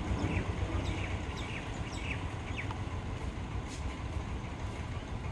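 Low steady rumble of an electric multiple unit train approaching from a distance, with several short falling bird chirps in the first three seconds.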